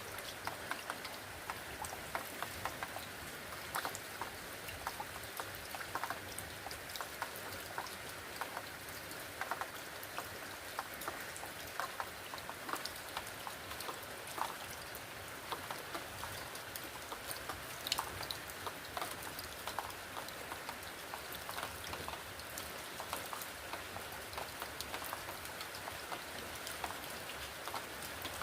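Rain falling, with many separate drops ticking irregularly on a hard surface over a steady hiss.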